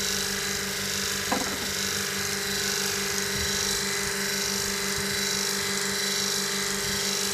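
Steady machine hum with a thin high whine, unchanging throughout, and a single short knock about a second in.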